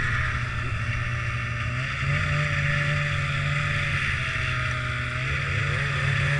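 Snowmobile engine running steadily at low speed, its pitch stepping up slightly about two seconds in.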